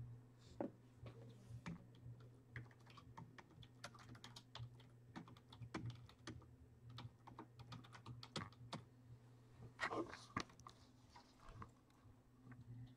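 Faint typing on a computer keyboard: quick, irregular key clicks, a few louder ones about ten seconds in, over a low steady hum.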